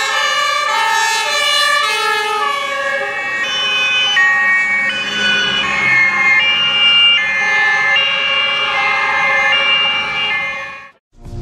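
Several German fire-brigade two-tone sirens sound at once and out of step, their alternating high and low notes overlapping as a convoy of fire vehicles passes. The sound cuts off abruptly near the end.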